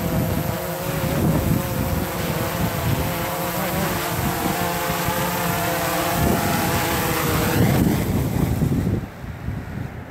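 DJI Phantom 3 Professional quadcopter's four brushless motors and propellers buzzing in flight, shifting in pitch as it comes down to land on concrete, then spinning down and stopping about nine seconds in. Wind rumbles on the microphone throughout.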